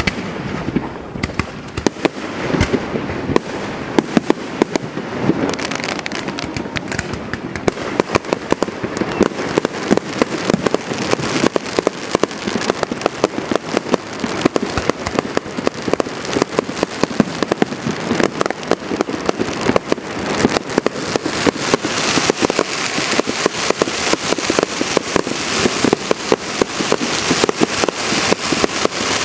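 Fireworks display going off: a continuous barrage of rapid pops, bangs and crackling, many per second, growing denser in the second half.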